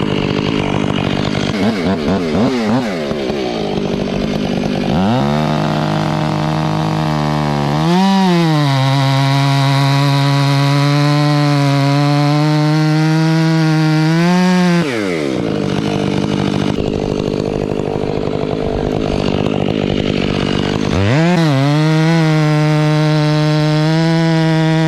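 Two-stroke chainsaw making a felling cut. It runs unevenly at low speed at first, revs up to full throttle about five seconds in and holds there for around ten seconds, drops back to idle, then revs to full throttle again near the end.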